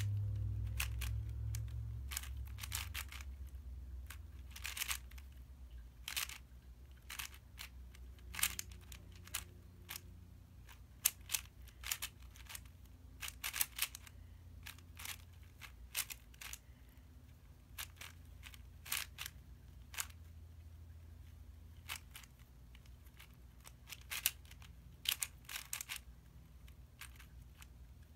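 Plastic clicking and clacking of a YJ MGC 4x4 speedcube being turned quickly by hand, in irregular runs of turns. A low hum fades away over the first few seconds.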